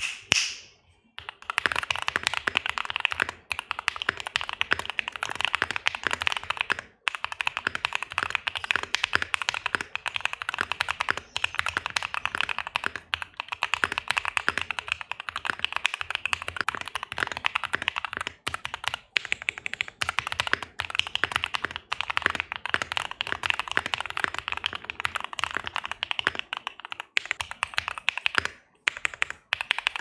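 Fast, continuous typing on a Bakeneko 60 mechanical keyboard with lubed Tecsee linear switches, a POM plate and PBT keycaps: a dense run of key clacks. A single knock comes at the very start, and the typing breaks off briefly about a quarter of the way in and again near the end.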